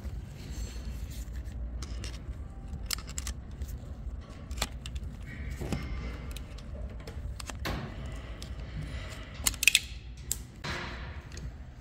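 Light metallic clicks and clinks as a metal rod probes the broken aluminium housing of a Tesla Model 3 rear drive unit, with a louder clatter about nine and a half seconds in.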